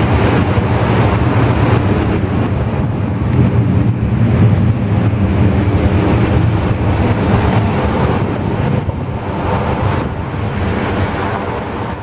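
Boeing 767-300's twin jet engines at takeoff thrust as the airliner climbs away: a loud, steady rumbling roar that eases off slightly near the end.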